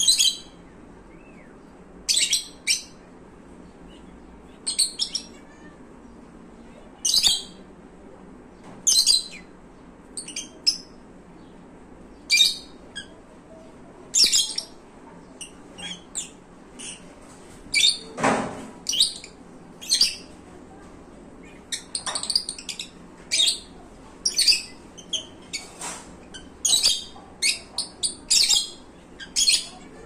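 Lutino lovebirds giving short, sharp, high-pitched chirps every second or two, which come faster and in quick runs in the last third.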